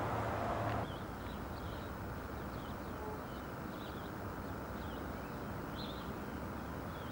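Small birds chirping faintly: short, high, scattered calls over a steady background hiss. A louder rushing noise cuts off suddenly just under a second in.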